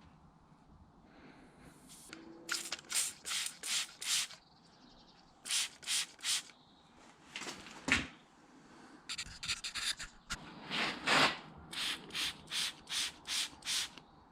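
Runs of short scraping, rubbing strokes, about two to three a second, in several bursts with pauses between, and one sharper knock about halfway through.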